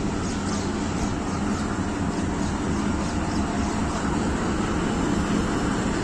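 Diesel-electric locomotive's engine running steadily as it draws a passenger train slowly along the platform, getting slightly louder as it nears.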